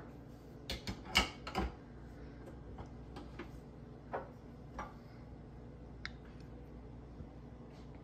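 A cluster of sharp clicks and knocks as an espresso machine's portafilter, shot glass and drip-tray scale are handled, the loudest about a second in, followed by a few faint scattered ticks.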